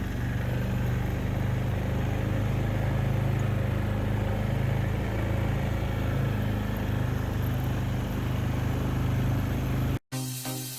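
A vehicle engine running steadily with a low hum. Near the end it cuts off suddenly and electronic music with a beat begins.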